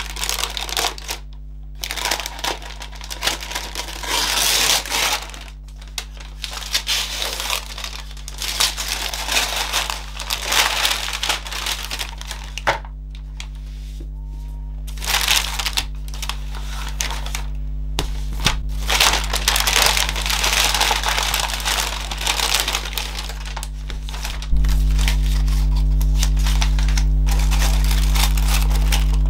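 Tissue paper crinkling and rustling in irregular bursts as packages are wrapped and sealed by hand, over a steady low hum that gets louder near the end.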